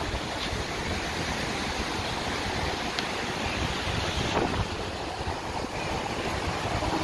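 Wind buffeting the microphone: a steady, rough noise with uneven low rumbling.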